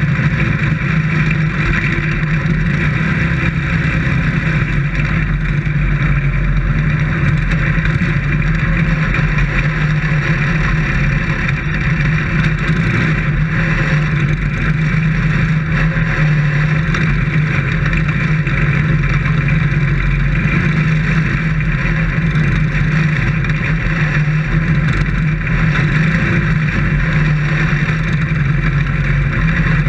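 Dirt-track race car engine running steadily, heard from inside the cockpit, a loud even drone with little change in pitch.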